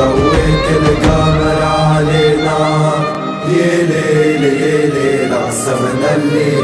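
Ultras stadium-chant song: voices singing the chant over a backing track. The deepest bass drops away about halfway through, after a brief dip in loudness.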